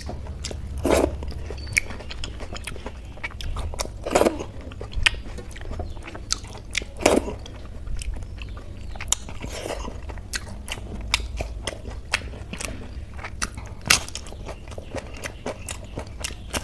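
Close-miked eating sounds: chewing and wet mouth smacks of rice and kadhi, with fingers squishing the food in the plate. Many small clicks, and a few louder wet smacks spaced a few seconds apart.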